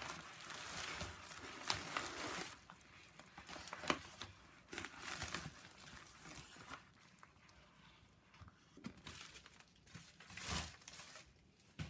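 Packaging being opened and handled: irregular crinkling and rustling, with a few sharp clicks, busier in the first few seconds and quieter later.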